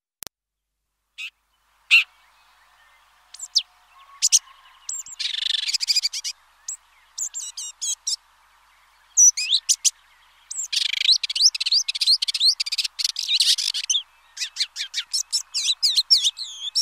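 Red-backed shrike singing: a scratchy, chattering warble of quick sharp notes and short whistled sweeps, coming in bursts with short pauses and busier in the second half, over a faint steady hiss.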